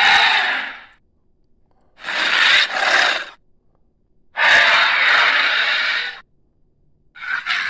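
Dinosaur creature sound effects for a Carnotaurus: a run of four breathy, hissing snarls, each about a second or two long, with short silences between.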